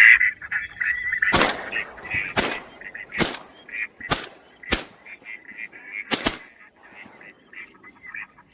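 Six shotgun shots over about five seconds, starting a second and a half in, fired at ducks over decoys. Ducks quack throughout, thinning out near the end.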